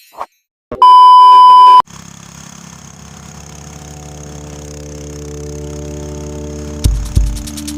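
A loud steady beep lasting about a second, then a steady humming drone that swells slowly, and near the end a beat of low thumps with quick ticking comes in: the intro music starting.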